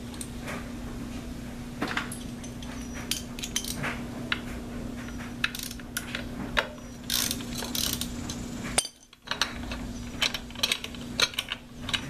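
Hand ratchet with a T27 Torx bit on an extension clicking in short, irregular runs as the screws of a Harley-Davidson primary clutch inspection cover are backed out, with small metallic clicks and taps from the screws and tool. A steady low hum runs underneath.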